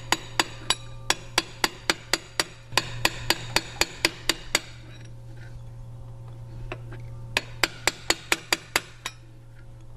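Hammer striking a soft-metal drift, light metallic taps at about four a second, driving the counterweight off the main shaft of a Brother KE-430C industrial sewing machine. A long run of taps stops about halfway through, and a shorter run follows near the end, over a steady low hum.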